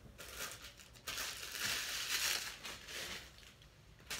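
Packaging crinkling and rustling as it is handled, in uneven bouts that are loudest about two seconds in.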